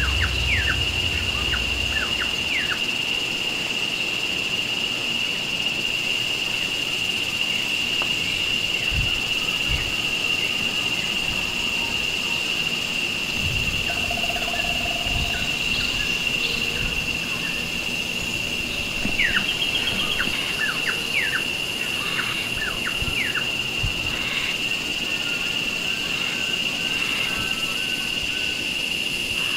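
Tropical outdoor ambience: a steady, high-pitched insect drone runs throughout, with scattered short, quick bird chirps over it, clustered around the middle and near the end.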